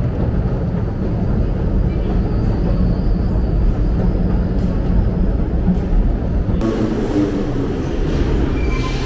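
Underground metro noise: a steady low rumble on a long descending escalator, changing abruptly about six and a half seconds in to the sound of a station platform with a train standing at it.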